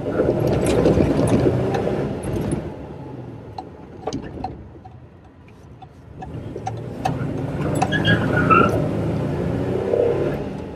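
Toyota FJ40 Land Cruiser's engine heard from inside the cabin, driven hard: it revs loudly for the first couple of seconds, falls away, then builds again to a second surge about eight seconds in.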